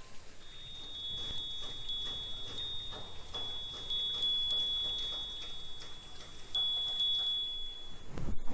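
A wind chime ringing with a high, clear tone, struck again every half second to a second and stopping shortly before the end. A low thump comes just before the end.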